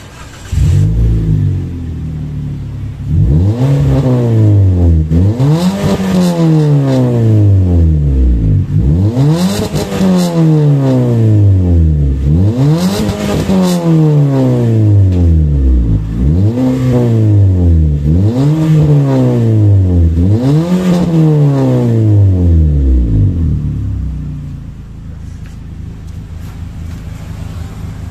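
Daihatsu Ayla 1.2's four-cylinder engine being revved through an aftermarket double muffler exhaust, in a run of quick throttle blips, each rising sharply and falling back more slowly. Near the end it settles back to idle.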